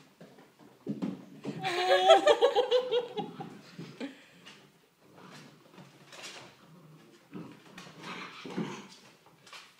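Six-week-old goldendoodle puppies at rough play: a loud burst of high, falling puppy yelps and squeals about two seconds in, then quieter scuffling and small yips.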